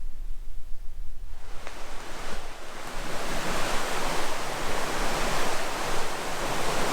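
Steady rush of running water, coming in about a second and a half in and growing louder, over a low rumble.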